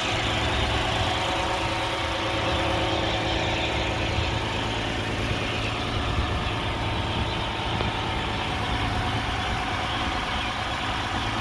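Lexus IS 300 engine idling steadily, running again after a crank-no-start that was cured by putting petrol into the tank.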